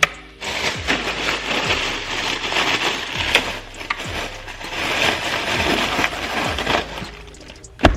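Rustling and clattering of frozen seafood packages being handled, with repeated small knocks.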